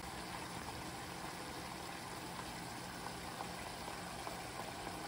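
Chicken adobo's soy-vinegar sauce simmering in a nonstick pan: a steady, quiet bubbling sizzle with faint tiny pops as the sauce reduces around the chicken.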